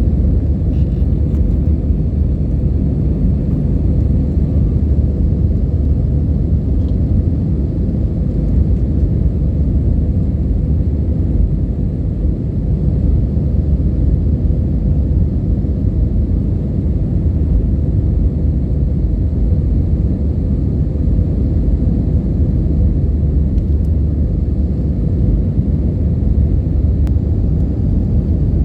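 Airliner engines and airflow heard from inside the passenger cabin: a loud, steady low rumble with a faint constant hum.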